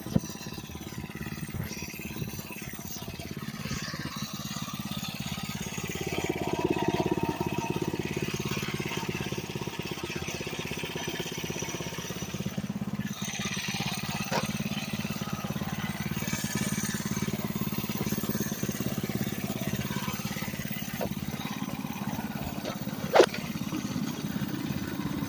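99cc minibike engine running steadily, getting louder about six seconds in and holding there. A single sharp click near the end stands out above it.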